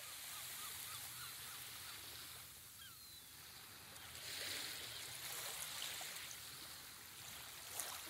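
Faint wash of water on a shore, with a few short, faint bird chirps in the first few seconds.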